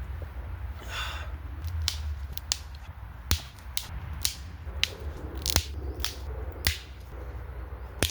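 Dry dead sticks snapping as they are broken by hand into smaller firewood: about ten sharp, separate cracks at irregular intervals over a low wind rumble.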